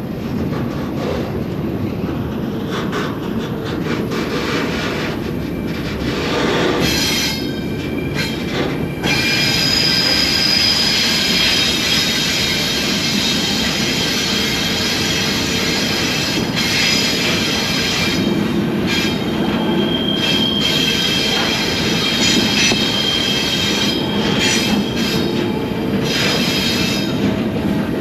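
Loaded freight train rolling, heard from aboard a car: a steady rumble of wheels on rail, with high, ringing wheel squeal that sets in about seven seconds in and gets louder a couple of seconds later.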